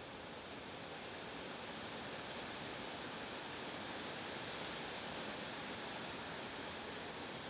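Wind blowing: a steady, even rushing hiss that slowly grows louder.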